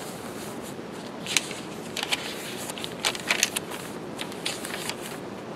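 Paper pages of a handmade hardcover journal, coffee-stained notebook paper among them, being turned and handled by hand: several short, crisp paper rustles, the loudest about a second and a half in.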